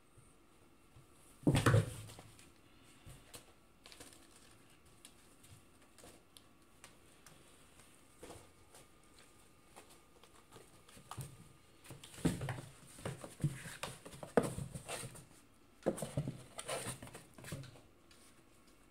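Cats scrabbling and bumping about in a cardboard box: one loud bump about a second and a half in, a few faint taps, then two flurries of scratching and knocking in the second half.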